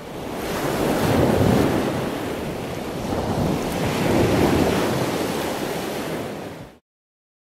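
Ocean surf: a wash of waves that swells twice, then cuts off suddenly near the end.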